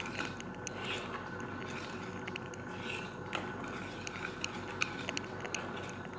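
Metal wire whisk stirring a thick yogurt-and-spice marinade in a bowl: faint wet squelching with irregular light clicks of the wires against the bowl.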